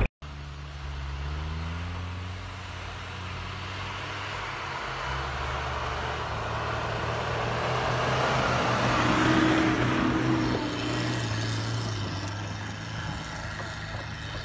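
Off-road vehicle's engine running under load as it pushes through deep snow, with the tyre and snow noise swelling about two-thirds of the way in and then easing off.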